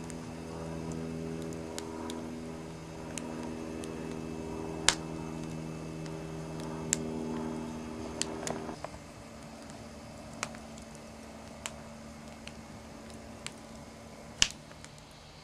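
Wood fire burning in a metal fire bowl, crackling with sharp pops and snaps every second or two, the loudest about five seconds in and near the end. Under it a steady low hum, which mostly cuts off about nine seconds in.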